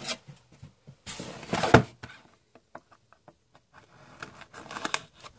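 Cardboard trading-card box and packaging being handled: one loud rustling scrape about a second and a half in, followed by scattered light taps and clicks.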